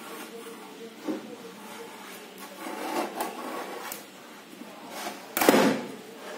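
Clear plastic Ferrero Rocher box handled and slid across a wooden desk: light knocks and rubbing, then a much louder scrape about five and a half seconds in.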